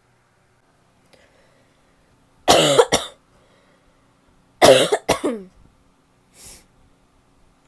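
A woman's barky coughing: two fits about two seconds apart, each a harsh cough followed quickly by a second, shorter one, then a faint breath.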